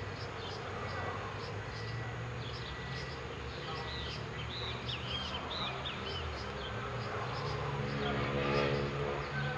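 Outdoor ambience of buzzing insects, with many short high chirps and a louder buzz near the end.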